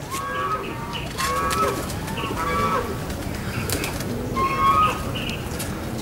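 Pigeons cooing in an aviary, several soft low coos overlapping. Shorter, higher-pitched calls repeat every second or so.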